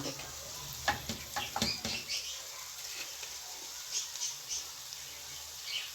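A few light clicks and knocks of a utensil in the frying pan about a second in, then several faint, short, high chirps.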